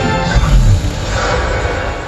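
Show soundtrack music played loud over outdoor loudspeakers, with heavy bass and a deep falling sweep about half a second in.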